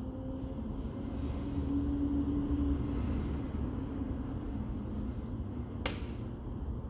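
Wood fire burning in a TMF Viziera clean-burning fireplace: a steady low rumble of the flames, with one sharp crackle about six seconds in.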